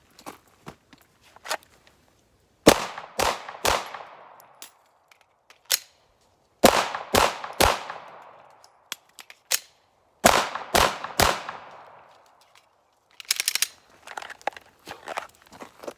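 Glock 17 Gen 5 9mm pistol fired in three strings of three quick shots, about half a second apart, with a magazine reload in each pause between strings. A run of light clicks and rattles follows near the end.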